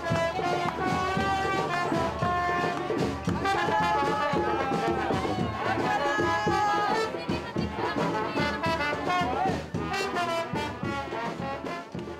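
Brass band music: trumpets and trombones playing a melody over percussion.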